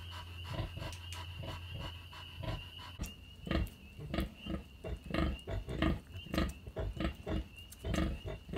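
Sow grunting in short, regular grunts, about two a second, while her newborn piglets suckle: the rhythmic nursing grunts of a sow letting down milk. In the first three seconds the grunts are softer, over a low steady hum.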